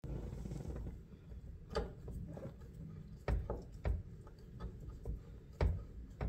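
Hard plastic and metal mirror parts being handled and fitted: a few sharp clicks and knocks over a low rumble.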